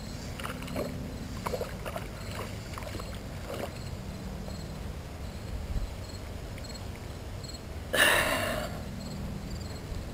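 Handling noise while landing a hooked bluegill by hand: small clicks and rustles of fly line and grass, then one louder rustling swish about eight seconds in. Faint insect chirps repeat steadily underneath.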